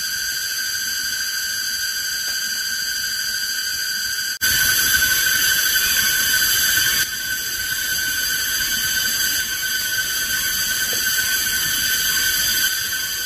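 Cicadas buzzing in a steady, high-pitched drone. It breaks off for an instant about four seconds in and comes back louder.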